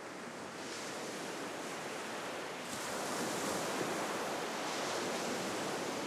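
A steady rushing, surf-like noise that swells gently and then eases off a little.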